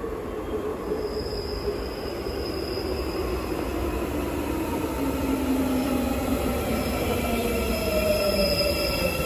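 Busan Metro Line 3 electric train pulling into the station and slowing to a stop at its terminus. It gets steadily louder, with a whine falling in pitch as it slows and a high-pitched wheel squeal.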